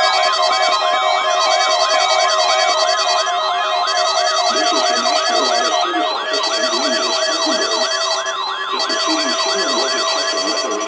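Weather radio receiver's warning alarm, set off by a weekly test, sounding a rapid siren-like warble of about three sweeps a second over steady tones. The warble stops about ten seconds in.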